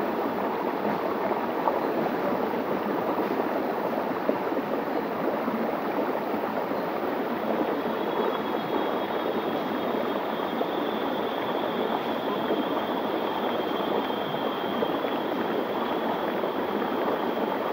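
Small forest river running over a rock slab and spilling into pools close by: a steady, even rush of water. A faint, thin, high whine joins it about halfway through and fades near the end.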